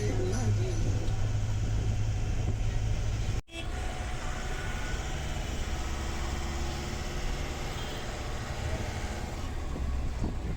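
Steady rumble of a vehicle running on the road, heard from inside it, with a sudden break about three seconds in.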